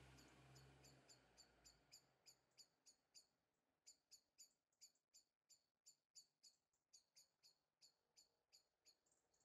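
Near silence, with a faint high chirp repeating about three times a second and a faint low hum that fades out about two seconds in.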